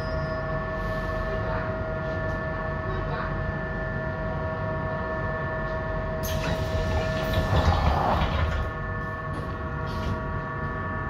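ASEA M31 tram's electrical equipment humming with several steady tones while it stands at a stop. About six seconds in, a burst of air hiss and clatter as its pneumatic doors close, after which the tram pulls away.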